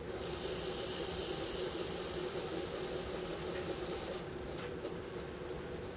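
Smartreloader iSD automatic powder dispenser throwing a charge into its scale pan: a steady hiss as powder streams out fast for about four seconds, then the hiss stops and only faint, scattered ticks follow as the trickler slows near the target weight.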